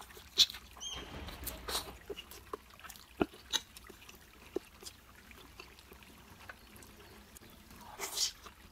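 Close-up eating sounds of fried instant noodles: wet chewing smacks and sharp mouth clicks, with a short noisy slurp about a second in and a louder slurp near the end.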